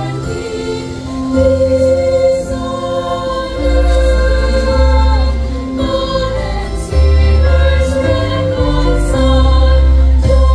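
Mixed youth choir singing in parts through stage microphones, holding long notes over deep bass notes.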